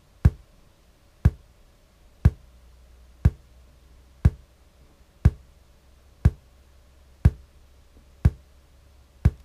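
Speaker playing a polarity test track: a sharp pop about once a second, ten in a row, over a faint low hum. These are the test pulses that the phase tester held at the speaker reads to show whether the speaker is wired in correct polarity.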